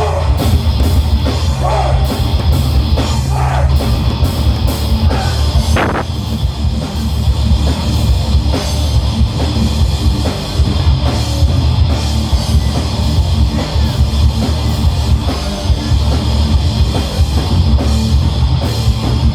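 Heavy metal band playing live: electric guitars and bass over a busy drum kit with steady cymbal hits, loud and dense.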